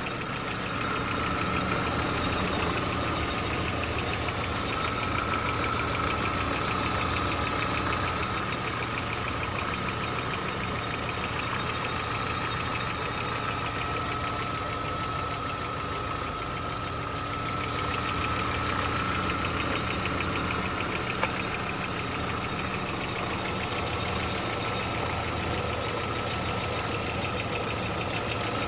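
Volkswagen Passat B4 engine idling steadily with a fast, even ticking knock and a thin high whine over it; the owner cannot tell whether the knock is a fault or normal running. A single sharp click about two-thirds of the way through.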